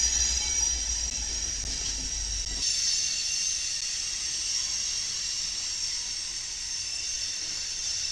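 Freight train of coal hopper cars rolling past, a steady high hiss of steel wheels running on the rails. A low rumble underneath cuts off abruptly about two and a half seconds in, while the hiss goes on.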